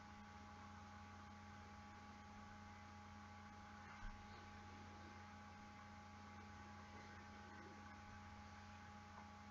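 Near silence: room tone with a steady faint electrical hum, and one soft low bump about four seconds in.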